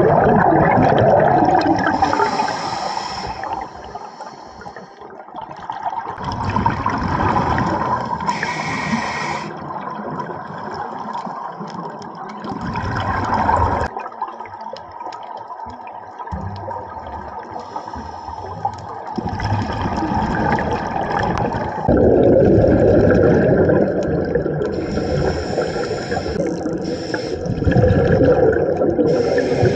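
Scuba regulator breathing heard underwater: loud rushing surges of exhaled bubbles every few seconds, with quieter stretches between breaths.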